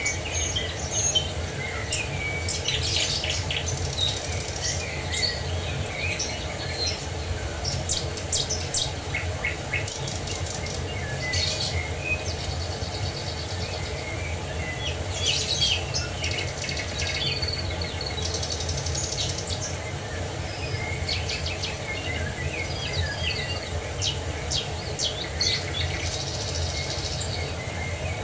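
Several songbirds chirping and trilling, with many short overlapping calls, over a steady rush of falling water.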